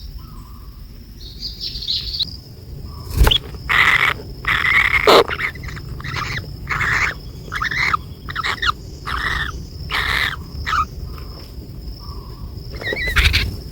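Hungry hairless nestling bird begging with a series of short, repeated chirps, about a dozen in quick succession, with a sharp knock about three seconds in and another near the end.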